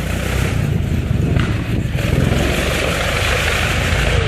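Fiat S76's huge four-cylinder engine running loud and steady, with a deep, uneven low pulsing.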